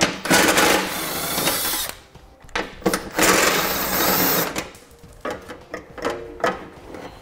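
Cordless power driver with a 13 mm socket running in two bursts of about two seconds each, backing out the screws that hold the front rock shield (skid plate). Near the end come a few lighter knocks as the shield is handled.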